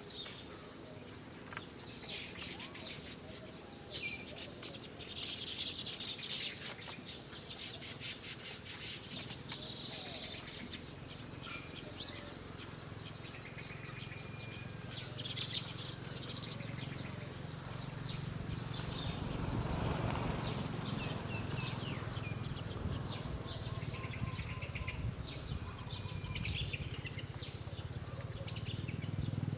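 Small wild birds chirping and twittering in quick, scattered high notes, busiest in the first third. A low steady rumble runs underneath in the second half.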